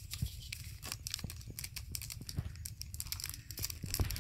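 Foil spice packet crinkling in the hand as masala powder is shaken out of it, a string of irregular crackles.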